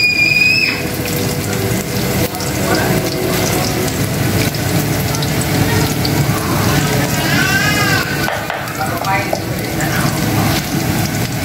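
Garlic and pork pieces sizzling in oil in a nonstick frying pan, a steady sizzle throughout. A short high-pitched squeal rises and holds right at the start.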